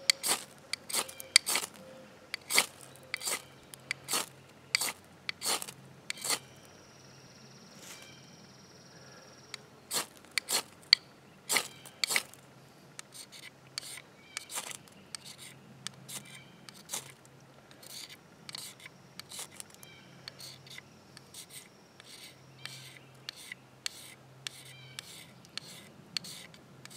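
Ferro rod scraped again and again with a striker to throw sparks onto charred wood: short, sharp rasping strokes, often in quick runs, loud through the first half and then lighter and sparser.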